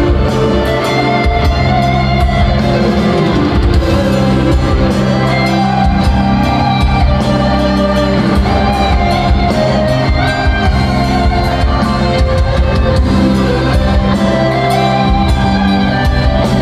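Live progressive metal band playing loud and without pause: electric guitar, keyboards, bass and drums, heard from the audience in a large hall.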